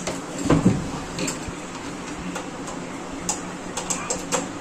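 Light handling noises as a power plug is pushed into a socket: a knock about half a second in, then scattered small clicks, over a faint steady hum.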